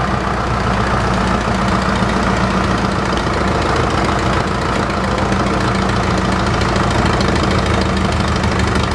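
Farm tractor engine running at a steady speed with an even low drone, driving a sawmill by flat belt.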